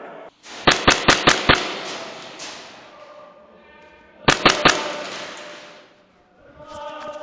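Airsoft gun firing two quick bursts of sharp cracks, about six shots about a second in and four more about four seconds in, echoing in a large hall.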